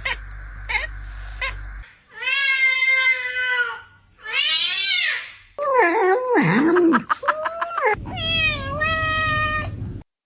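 A domestic cat meowing: a quick string of short chirps, then several long drawn-out meows, one rising and falling in pitch, cutting off suddenly near the end.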